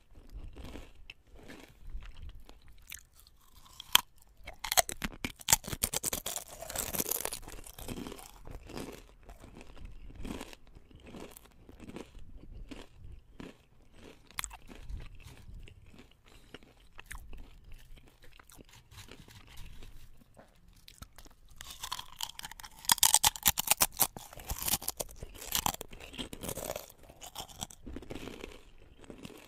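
Potato chips being bitten and chewed: crisp, irregular crunching and crackling. The crunching comes densest and loudest about a quarter of the way in and again about three quarters of the way through.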